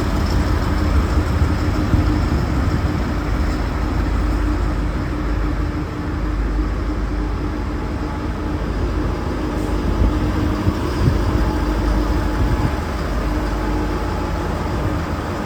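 V/Line Sprinter diesel railcars running with a steady low rumble and a faint steady hum.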